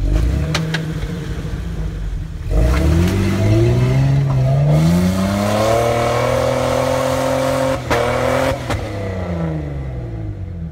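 Jeep Wrangler engine pulling up a snowy ramp. It runs low for a couple of seconds, then its revs rise steadily for about five seconds as it climbs, and fall away near the end. A couple of sharp knocks come around the peak.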